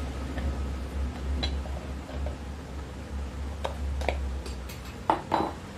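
Sharp metallic clicks and clinks, a handful spread out and the loudest two close together near the end, as a screwdriver pries apart the metal body halves of a ceiling fan motor. A low hum runs underneath and fades about halfway.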